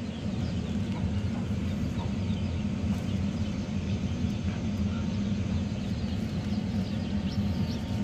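Steady low mechanical hum, with faint high-pitched bird chirps scattered over it.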